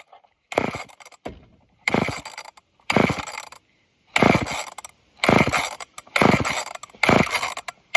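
Seven quick pulls on an old off-brand chainsaw's recoil starter cord, about one a second, the engine turning over without catching. The owner wonders whether it is having a hard time pulling fuel through a dirty filter.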